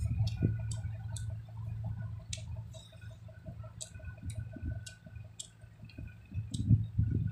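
A person eating noodles with chopsticks and a metal spoon from a stainless steel bowl: chewing with scattered sharp clicks, and a few louder mouthfuls near the end.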